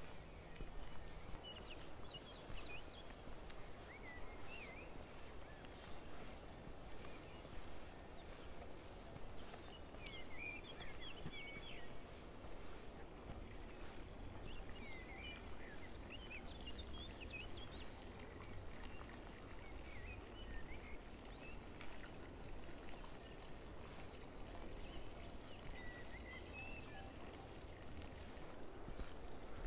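Songbirds chirping and twittering in scattered short phrases, with a high short note repeating steadily, about two or three times a second, through the middle and latter part. A faint low rumble of outdoor noise lies underneath.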